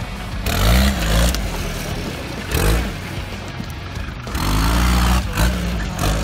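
Suzuki-based off-road competition buggy's engine revving hard in repeated bursts as it climbs rough ground. Short bursts come about half a second in and again near the middle, then a longer, louder rev from about four and a half seconds in.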